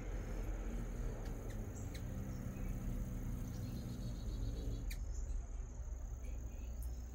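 Evening insects trilling steadily in one high, thin tone, over a low rumble, with a few short sharp clicks. A low drone swells up near the middle and fades away again.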